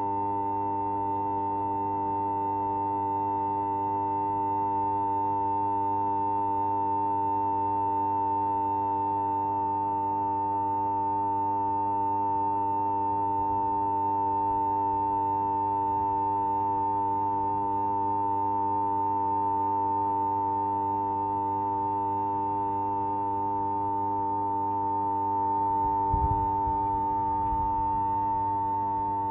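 Steady high-pitched electronic humming: a constant tone just under 1 kHz over weaker lower tones and a low hum, unchanging throughout. A brief low thump comes near the end.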